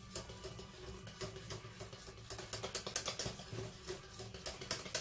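Hand whisk beating thick mascarpone cream in a stainless steel pot, its wires clicking and scraping against the pot's sides in quick strokes. The clicking gets faster and louder about two seconds in.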